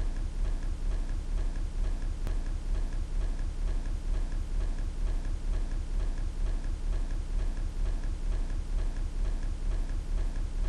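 Clock ticking steadily and evenly, over a low steady hum.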